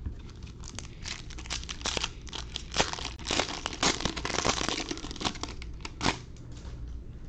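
Wrapper of a 2020 Donruss Optic baseball card pack crinkling and tearing as it is ripped open, a run of sharp crackles from about half a second to about six seconds in.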